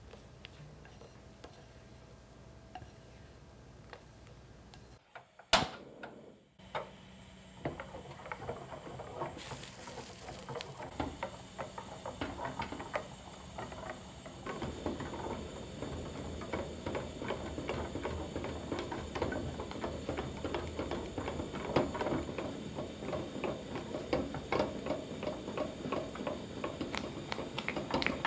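A kitchen utensil working a mixture in a pan or bowl, a fast run of small clicks and scrapes against the side. After a sharp click about five seconds in, the stirring starts up and grows busier about halfway through.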